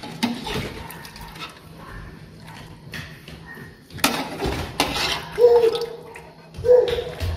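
Metal ladle scooping broth in a large aluminium pot, knocking against the pot several times and briefly ringing, with broth sloshing and splashing.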